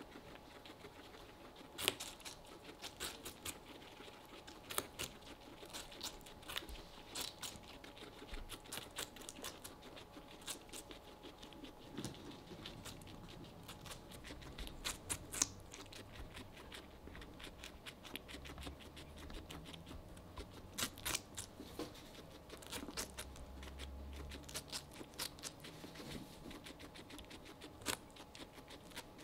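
Guinea pigs biting and chewing a slice of watermelon close up: irregular sharp crunching clicks of bites into the fruit, with a faint low hum in the second half.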